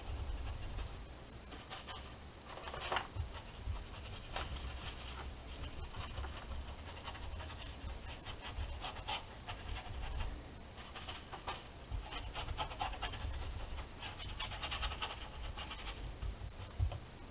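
Paintbrush scrubbing and dabbing acrylic paint on a painting board: irregular soft scratches and light clicks, over a low rumble.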